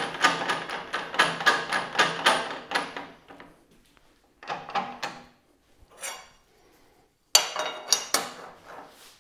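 Metal clanks, clicks and knocks as the old table-saw fence is handled, clamped and adjusted on the saw's cast-iron table. They come in a quick run at first, then in separate short bursts with pauses between.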